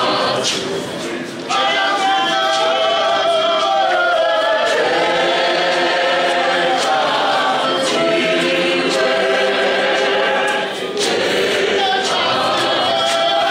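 Congregation singing a hymn together, many voices in chorus, swelling to full volume about a second and a half in, with a short break between lines near the end.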